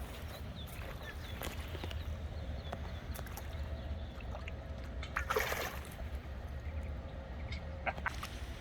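Water splashing once, briefly, about five seconds in, over a low steady rumble and a few small clicks.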